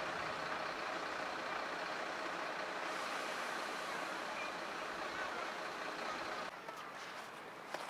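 Steady running noise of idling emergency vehicles. About six and a half seconds in it drops to a quieter background, and a short click comes near the end.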